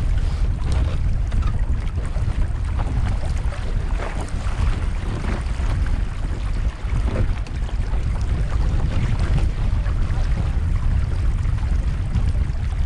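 Gusty wind buffeting the action camera's microphone on the foredeck of a Streaker sailing dinghy, with water splashing irregularly against the wooden hull as it sails through chop.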